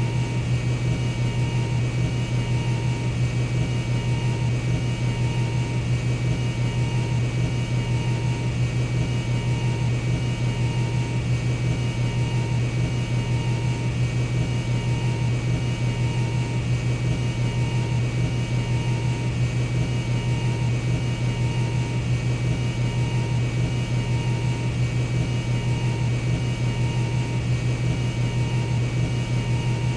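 Jet aircraft cabin interior in flight: a steady, unbroken drone dominated by a deep hum, with a thin high whine on top. A faint mid-pitched tone pulses on and off at an even pace, about once every second and a half.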